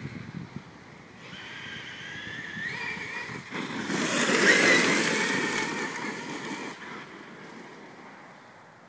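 Brushless electric RC monster truck (Traxxas E-Revo on a 4S LiPo pack) running: a high motor whine rises slightly in pitch as it speeds up and is loudest about four to five seconds in as it passes close. It then fades as the truck drives away, with its tyres churning over leaves and gravel.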